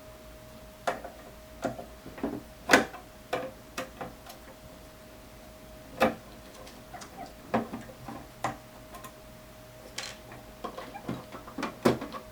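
Irregular light clicks and knocks of hand work on a small electronics case: cover screws being taken out and the plastic cover and parts of the mic mixer being handled. A faint steady tone runs underneath.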